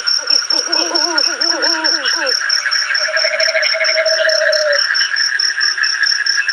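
Night chorus of frogs and insects: a high chirp pulsing evenly several times a second, with a frog's lower trilling call repeating in spells of a second or so. Shortly after the start, a brief run of rising-and-falling pitched calls lasts about two seconds.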